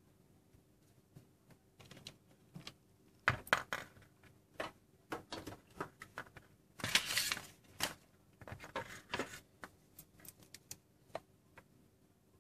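Handling noise from a plastic digital sports watch turned over in the fingers: irregular clicks, taps and rubbing on the case and strap. A longer rustle comes about seven seconds in.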